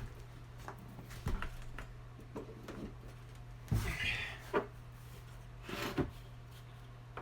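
Scattered knocks and clicks of a reassembled tile saw being handled and its power cord plugged in, over a steady low hum.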